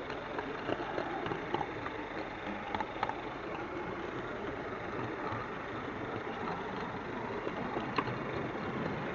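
Model railway wagon rolling along the track close to the microphone: a steady running rumble with a few sharp clicks scattered through it.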